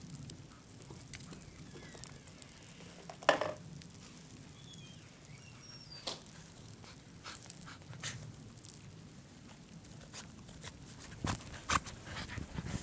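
Soft, scattered crunches of footsteps in deep fresh snow, with one brief louder sound about three seconds in.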